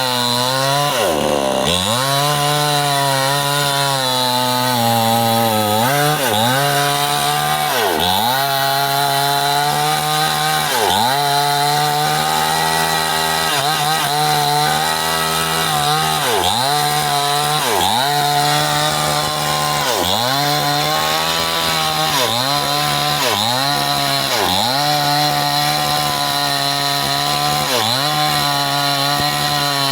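Stihl two-stroke chainsaw running hard while cutting up a bendo log, its engine note dipping sharply and recovering every second or two.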